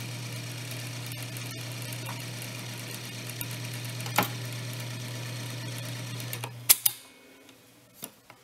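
Webster-Chicago 346 record changer mechanism running with a steady motor hum and light mechanical whirr, a sharp click about four seconds in. Near the end two clicks in quick succession come as the hum cuts off, followed by a couple of fainter clicks.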